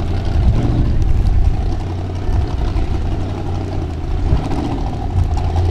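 Formula Offroad hill-climb buggy's engine running steadily at low revs, with small rises and falls in pitch, as the car creeps over the edge of a steep dirt bank.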